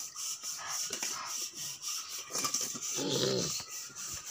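Water splashing and sloshing in a plastic tub as a toddler moves about in it, with small rubbing and knocking noises. A short voice-like sound, about half a second long, comes about three seconds in.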